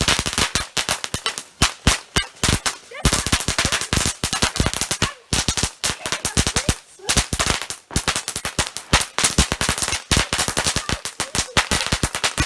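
A lit firework, 'Nuclear 2', going off in a rapid, machine-gun-like string of sharp bangs and crackles, many a second, with a few short pauses.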